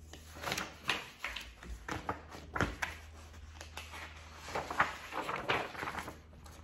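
Sheets of paper rustling and being shuffled on a desk in irregular bursts, with a few light knocks of handling.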